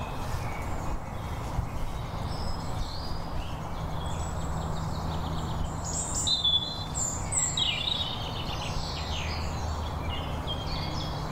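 Springtime woodland birdsong: several birds singing and calling at once in overlapping short phrases and trills. A steady low rumble and hiss runs beneath them.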